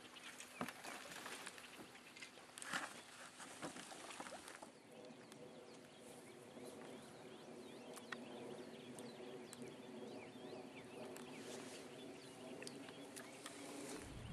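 Faint outdoor ambience. The first few seconds hold scattered clicks and knocks. From about five seconds in, a steady chorus of small animal calls sets in, with light ticks and chirps over it.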